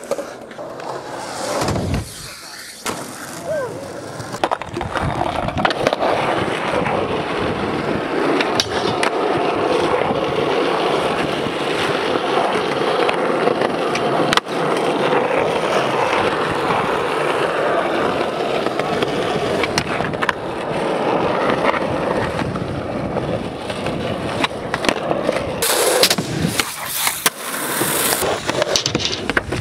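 Skateboard wheels rolling over rough, worn concrete: a loud, steady gritty rolling noise. Sharp clacks of the board popping and landing break in now and then, the loudest about halfway through.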